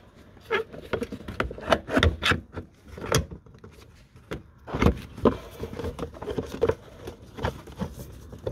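Plastic wheel-arch liner being pushed and worked back into place by hand: a run of irregular knocks and clicks with rubbing scrapes between them.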